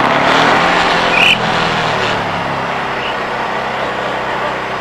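Bajaj Dominar single-cylinder motorcycle engine running under the rider, with road noise. The engine note drops over the first couple of seconds as the bike slows toward queued traffic, and a brief high squeak comes about a second in.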